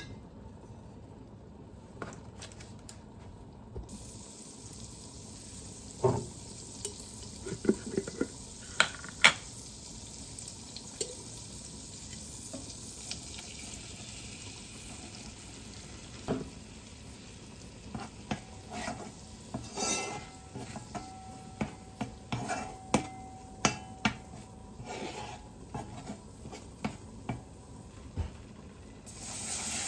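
Utensils and cookware clinking and knocking in a kitchen, many short sharp knocks at irregular intervals over a faint steady hiss. The hiss grows louder at the very end.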